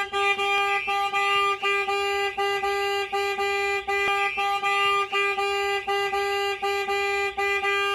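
Starline S9 vehicle alarm on a Ford Transit Custom van going off in full, set off by a second tampering attempt on the rear barn doors. A steady honking tone pulses about three times a second, with a warbling siren over it.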